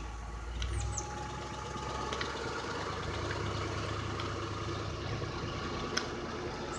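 An engine idling steadily, a low, even hum with a few faint ticks.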